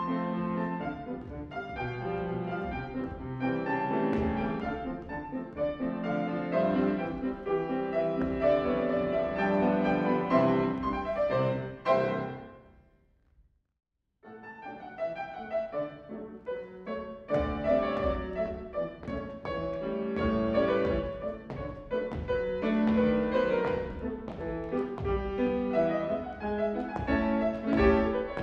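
Live piano accompaniment for a ballet class, playing classical-style exercise music. It fades out a little before halfway, and after a second or so of silence a new piece begins.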